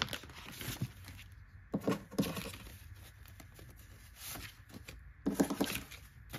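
Paper banknotes rustling and shuffling as they are pulled out of a budget binder's plastic pocket and gathered into a stack by hand, in uneven bursts, louder about two seconds in and again near five and a half seconds.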